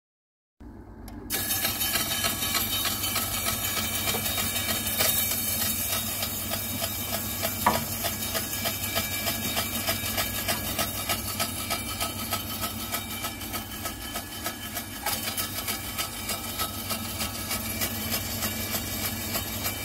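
Berkel 834 S meat slicer running, a steady motor noise with a fast, regular pulsing; one sharp knock about eight seconds in.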